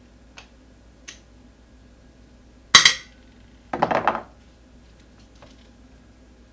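Metal clinks from loose hardware and tools while the front axle nut and washer come off an e-scooter's wheel: two faint ticks, then two sharp metallic clanks about a second apart near the middle, the second with a few quick rattles.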